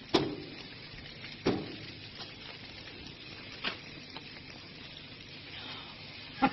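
Lit gas grill hissing and sizzling steadily, with two sharp knocks, one just after the start and one about a second and a half in, and a smaller click later.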